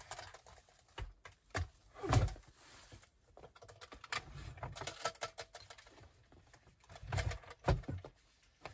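Irregular clicks and clacks of plastic clothes hangers on a closet rod, with clothes rustling and a few soft thumps, as laundry is put away.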